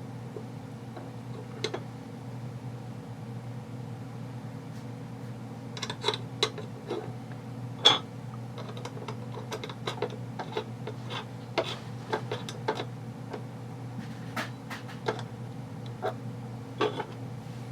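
Small clicks and taps of parts being handled and fitted while an airsoft gearbox is reassembled, irregular and scattered, over a steady low hum.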